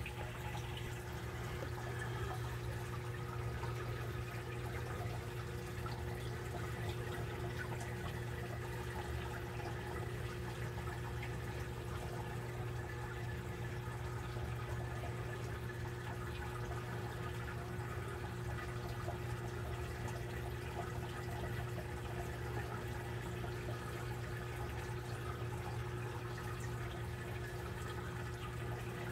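Aquarium filter running: steady trickling water over a constant low electric hum.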